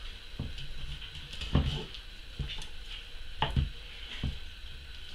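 Boning knife cutting meat away from a hare's leg bone on a wooden chopping board: about six soft knocks of blade and bone against the board, at uneven intervals.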